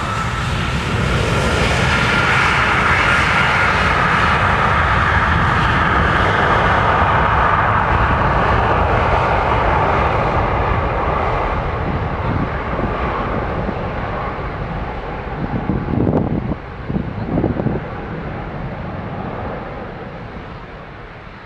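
Departing airliner's engines at takeoff power, a loud rushing noise that swells, holds for several seconds, then fades and dulls as the aircraft climbs away.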